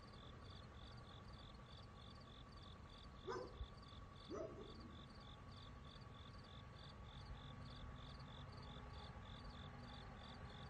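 Faint outdoor night ambience: an insect chirps steadily about twice a second over a faint, constant whirr and a low hum. Two brief, louder sounds come about a second apart, a little past three and four seconds in.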